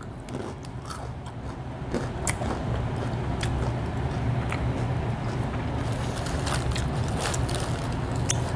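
Chewing a bite of crispy fried chicken close to the microphone: scattered crunchy crackles and clicks over a steady low rumble that grows louder about two seconds in.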